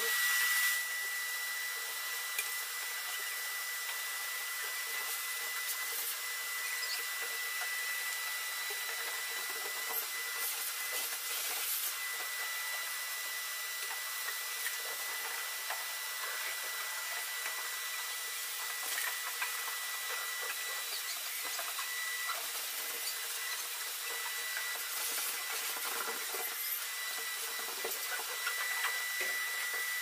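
Shop vac motor starting up, then running steadily with a constant high whine while vacuuming out a car, with occasional brief clicks and knocks at the nozzle.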